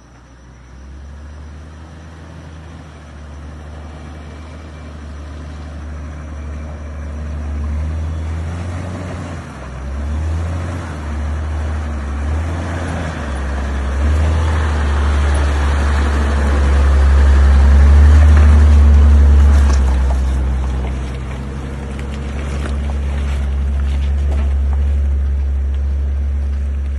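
Toyota Land Cruiser 80 series six-cylinder turbo diesel engine running with a deep, low rumble that grows steadily louder, dips briefly twice around ten and thirteen seconds in, peaks near eighteen seconds, then eases off a little and holds.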